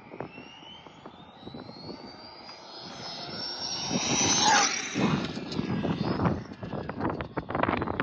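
Arrma Limitless V2 RC speed car's TP 4070 brushless motor whining at high speed on 6S, rising in pitch and getting louder as it approaches, then dropping sharply in pitch as it shoots past about four and a half seconds in. Wind buffets the microphone afterwards.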